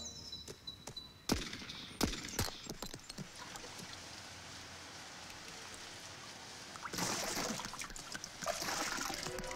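Water trickling and pouring, with three sharp smacks in the first two and a half seconds and louder splashing and pouring from about seven seconds in.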